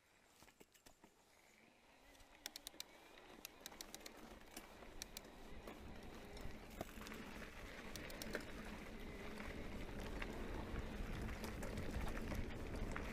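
Electric mountain bike rolling down a gravel track: sharp clicks of loose stones under the tyres, then a rumble that grows steadily louder as the bike picks up speed.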